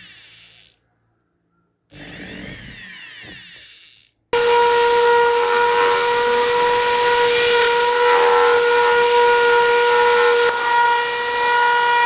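Makita BO6030 orbital sander: two short runs that die away, then, about four seconds in, it starts suddenly and runs steadily and loudly with a steady whine.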